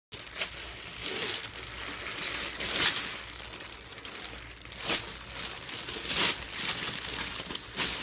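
A baby's hands grabbing and scrunching the crinkly paper sheet covering an exam table: repeated bursts of rustling and crackling, the loudest about three seconds in.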